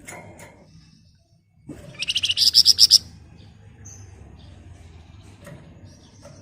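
Flamboyan songbird giving a rapid, shrill, chattering trill of about a dozen quick notes lasting about a second, a couple of seconds in. A few faint single chirps come before and after it.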